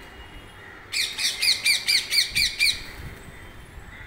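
Rose-ringed parakeets screeching: a fast run of about ten harsh, falling calls starting about a second in and lasting nearly two seconds.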